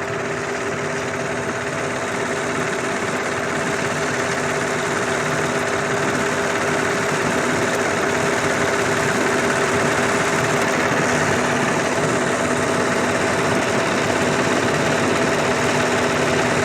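An engine running steadily, slowly growing a little louder.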